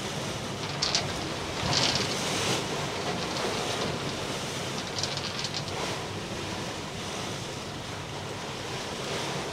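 Steady rush of wind and breaking sea water around a sailing catamaran under way in rough seas, with wind noise on the microphone. A few louder hissing surges of water come about one, two and five seconds in.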